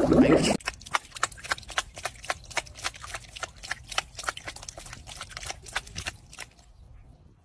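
A cat batting at the water in a tub with its paw: a long run of quick slapping splashes, several a second, that dies away about a second before the end. A brief loud sound comes first, at the very start.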